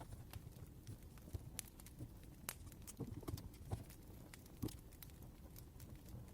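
Crackling fire: irregular sharp pops and snaps, a few a second, over a low rumble.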